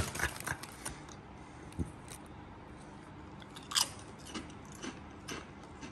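Crinkle-cut potato crisps being bitten and chewed: a handful of scattered crunches, the loudest a little before four seconds in.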